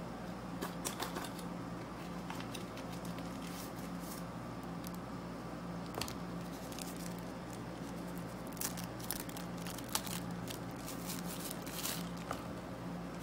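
Small plastic clicks and rustles from gimbal accessories and their packaging being handled, clustered about a second in and again through the last few seconds, over a steady low hum.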